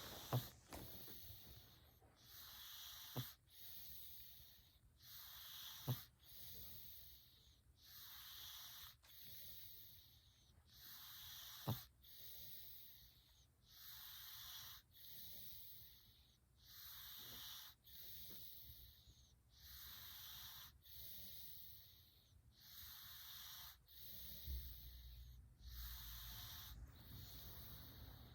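Domestic cat snoring in its sleep: a wheezy, hissing breath about every one and a half seconds, with a few short sharp clicks among the breaths.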